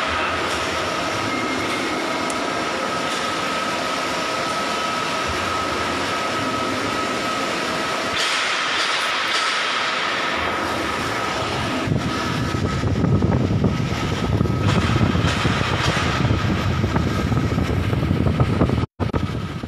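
Steady din of shipboard machinery with a constant high whine. About twelve seconds in it grows louder and rougher while the phone is handled and moved about.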